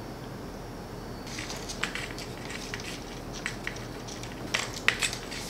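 Iron pipe fittings being handled and threaded together: scattered light scraping and small clicks start about a second in, with a few sharper clicks near the end.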